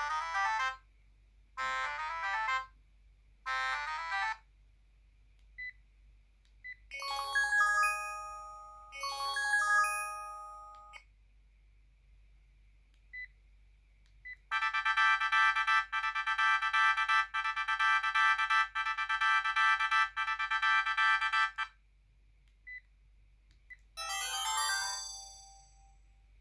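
Sharp GX12 mobile phone playing a run of its built-in ringtones, each previewed briefly with short gaps between: a short tone pulsed four times, a two-phrase melody, a fast steady pattern for about seven seconds, then a brief burst near the end.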